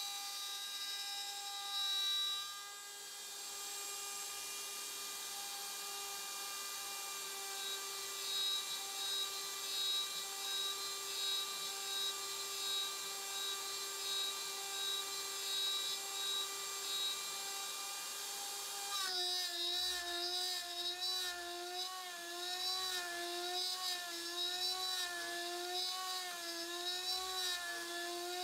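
Router spindle of a MillRight Power Route desktop CNC running at 24,000 RPM, a steady high-pitched whine, while a single-flute carbide end mill cuts a pocket in aluminum. About nineteen seconds in, the whine starts to waver up and down in pitch roughly once a second as the load on the cutter varies.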